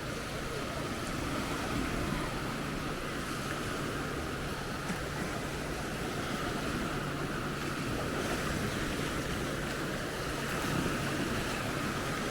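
Small waves lapping onto a sandy shore, a steady wash that swells gently a few times.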